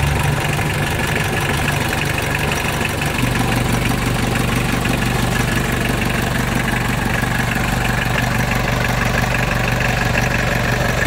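Mitsubishi 4D56 four-cylinder turbodiesel engine idling steadily; its low hum shifts slightly about three seconds in.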